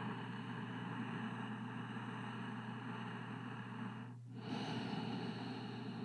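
A person's slow, long breath close to the microphone, with a brief break a little after four seconds before the next breath, over a steady low electrical hum.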